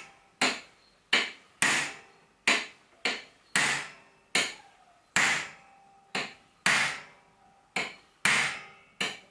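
Repeated hammer blows, about a dozen in steady succession, each a sharp metallic strike with a brief ring. A hammer is driving down on an extension bar set on a dehumidifier motor's shaft, trying to shock the shaft out of a seized aluminium fan wheel.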